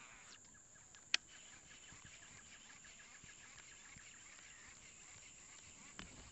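Quiet river-bank outdoor ambience with a faint, fast, even ticking for a few seconds and one sharp click about a second in.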